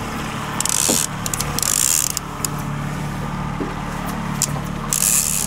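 A trolling reel being cranked, clicking and whirring as a hooked salmon is reeled in, over the steady low hum of an idling outboard motor.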